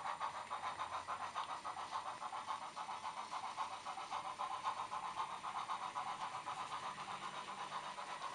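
Recorded steam exhaust chuffing from the DCC sound decoder's small speaker in a Bachmann OO gauge WD Austerity 2-8-0 model locomotive, a steady, even beat of about four or five chuffs a second as the engine works along with its train.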